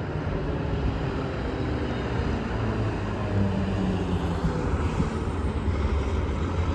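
Road traffic at an intersection: a steady low engine drone, with a heavy diesel truck's engine growing stronger from about halfway through as it approaches.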